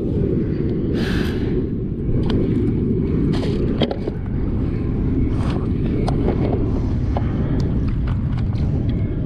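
Wind buffeting the microphone on a kayak on the sea, a steady low rumble, with scattered light knocks and scrapes.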